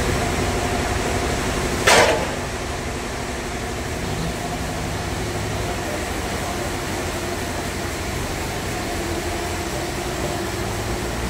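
Sawmill bandsaw machinery running steadily, with a brief loud burst of noise about two seconds in.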